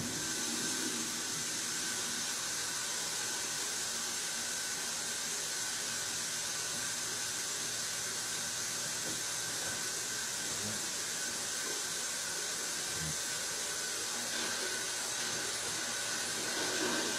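Steady hiss of background noise in a quiet bedroom, with a faint high steady whine. It is broken only by a faint low knock or two about ten and thirteen seconds in.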